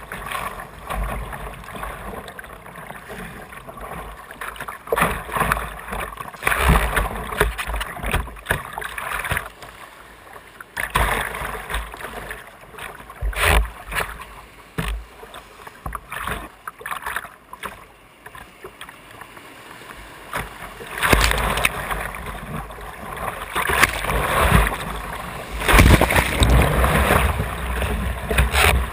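Rushing whitewater and water splashing against a kayak's bow, in uneven surges, growing louder about two-thirds of the way through as the boat runs into rougher rapids.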